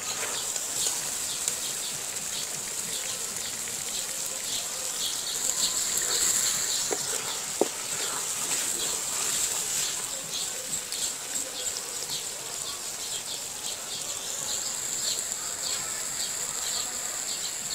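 Mutton curry masala sizzling and spitting in a metal pot as it is stirred with a wooden spatula: a steady high hiss with many small crackles, and one sharp knock a little after halfway.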